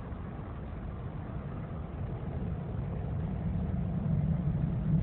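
Distant low rumble of a Boeing 767's jet engines on its takeoff roll, growing steadily louder.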